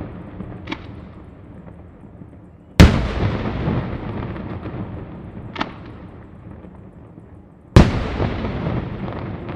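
Daytime fireworks battery (Sanseverese-style) firing: two heavy bangs about five seconds apart, each rolling away in a long echo across the valley, with smaller cracks in between.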